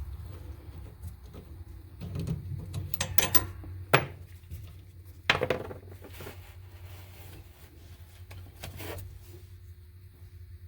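Handling noises as a steering wheel is worked onto its steering shaft: rubbing and light clatter, with two sharp knocks about four and five seconds in.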